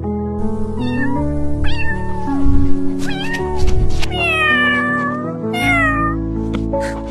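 A cat meowing about five times over background music; the longest meow, near the middle, falls in pitch.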